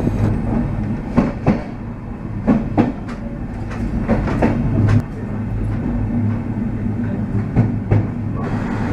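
Train running along the track: wheels clicking over rail joints and points, mostly in pairs of clicks in quick succession, over a steady low hum from the running gear.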